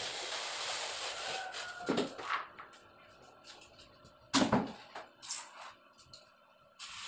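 Gypsum boards handled on a tile floor: scraping and rubbing, a few light knocks, then a heavier thud about four and a half seconds in as a board is set down, and a couple of lighter knocks after it.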